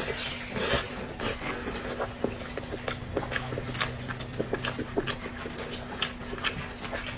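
Close-miked eating: wet chewing and lip-smacking in quick, irregular clicks. A low steady hum sounds for about two seconds midway.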